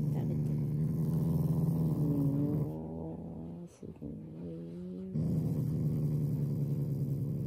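Black Shiba Inu growling in long steady stretches, easing into a quieter, wavering growl for a couple of seconds in the middle before growling loudly again; it cuts off just after the end. The growl is a demand to be hand-fed, which the owners say is affection, not anger.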